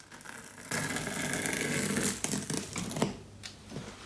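Double-sided tape pulled off its roll: a steady rasp for about a second and a half, starting about a second in, then a few small clicks and rustles of handling.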